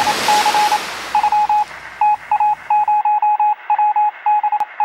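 Morse code: a single high-pitched beep keyed on and off in a run of short and long tones. Underneath, a hiss fades and cuts out about three seconds in.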